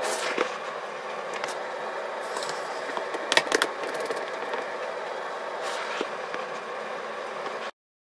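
A pine board being handled and clamped to the bench with a one-handed bar clamp: a few sharp clicks and knocks, the loudest cluster about three and a half seconds in, over a steady hiss. The sound cuts off abruptly just before the end.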